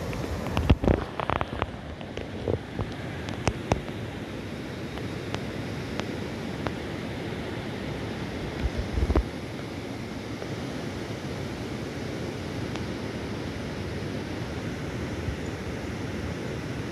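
Steady rush of a fast river running over rocky rapids. Wind buffets the microphone in a few loud bumps about a second in and again around nine seconds in.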